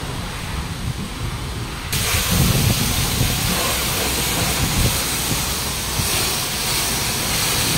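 High-pressure washer lance spraying water onto a car's body. A loud hiss of spray starts suddenly about two seconds in and continues over a low rumble.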